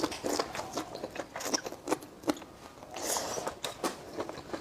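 A person chewing and crunching crisp food close to the microphone: irregular sharp crunches, with a longer bite about three seconds in.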